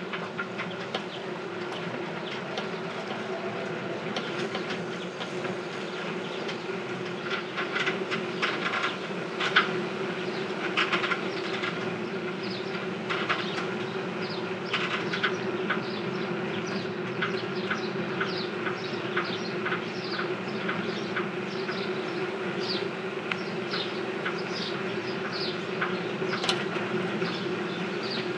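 Rented bicycle being ridden and rattling noisily: a steady hum under repeated clicks and short high squeaks about once or twice a second.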